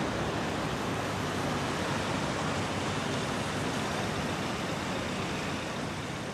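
Steady city street traffic noise with no distinct events, fading down near the end.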